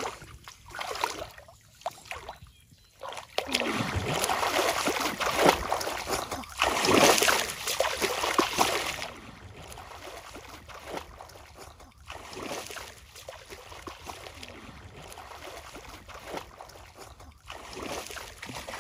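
Legs wading through shallow muddy water, splashing and sloshing, loudest over the first half, then dropping to a quieter background about halfway through.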